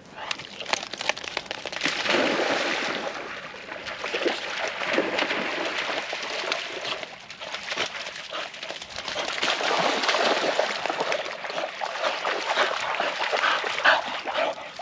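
Springer spaniels splashing as they run through shallow creek water, with sloshing and the splatter of paws in the water, loudest about two seconds in and again around ten seconds.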